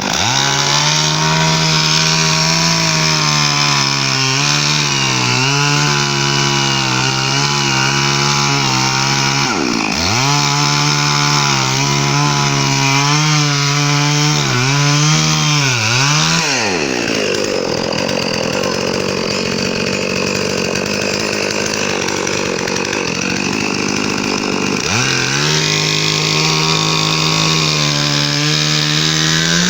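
Electric drill motor revving up to speed and running steadily, released and re-triggered several times, its pitch falling each time it winds down. Through a stretch in the middle it gives way to a harsher sound with no steady pitch.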